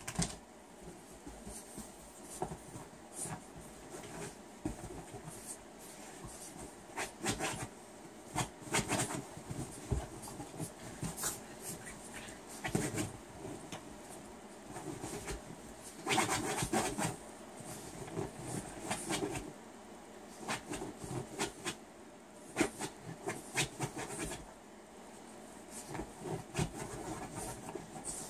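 Boston Terrier puppy digging at a blanket and couch cushion: bouts of rapid paw scratching and rustling fabric that start and stop irregularly.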